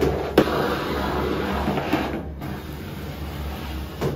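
Handheld steam cleaner hissing while its brush nozzle scrubs a ceramic sink basin and tap, with a sharp click just after the start and a brief break in the hiss about two seconds in.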